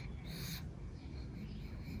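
Pug's noisy nasal breathing while asleep, with a short hissy, airy breath about half a second in and another beginning near the end.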